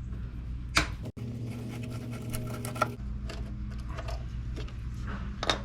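Scattered small clicks and rattles of parts and tools being handled, over a steady low hum.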